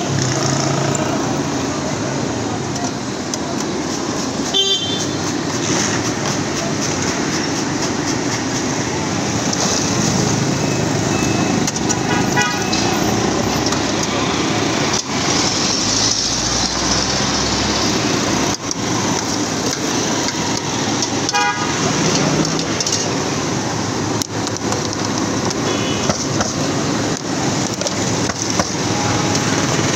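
Steady street traffic noise with several short car-horn toots, mixed with the continuous sizzle of chips deep-frying in hot oil.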